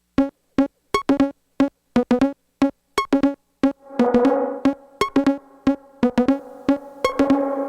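Electronic music intro: short, sharp synth stabs on one chord in a stop-start rhythm, filling out with held synth tones from about four seconds in.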